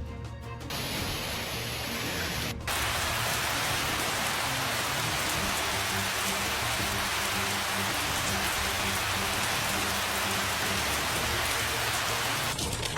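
Dense, steady hiss of heavy precipitation pelting down during a hailstorm. It jumps louder a bit over two seconds in and then holds even, with a faint low music bed underneath.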